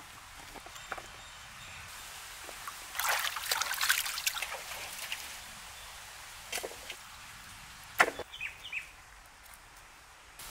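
Water splashing, trickling and dripping in a basin as food is rinsed by hand. A burst of splashing comes about three seconds in, and there is a single sharp knock about eight seconds in.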